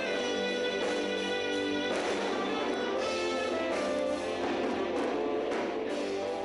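Rock band music: guitar with held, sustained chords.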